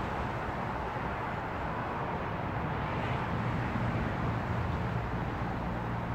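Steady low rumble and hiss of distant road traffic, with a faint low hum, unchanging throughout.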